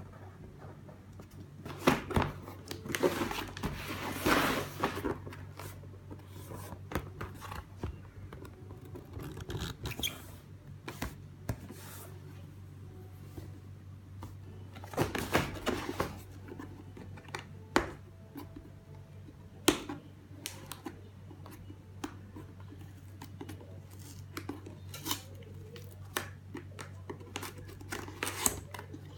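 Packaging being opened and handled: crackling, rustling and tearing stretches with scattered clicks and knocks, over a steady low hum.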